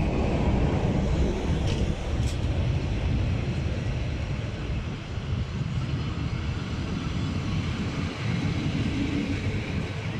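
Passenger coaches of a departing train rolling past close by, a steady rumble of wheels on the rails.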